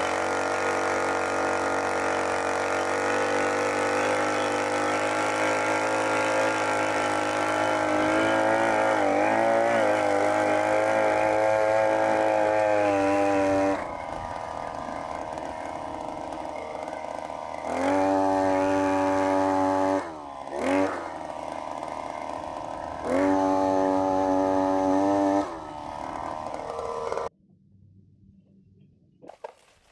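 Petrol earth auger engine running at high revs while the auger drills into the soil, dropping to idle about halfway through and then revved up twice. The engine sound cuts off abruptly near the end.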